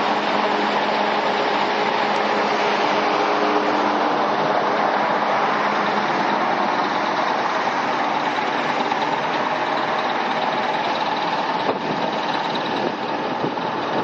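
Diesel generator engine running steadily just after a cold start in hard frost.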